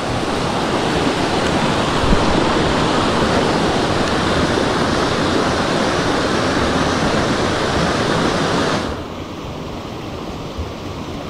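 Rocky mountain stream rushing over granite rapids, a steady loud rush of white water. About nine seconds in the sound drops abruptly, becoming quieter and duller.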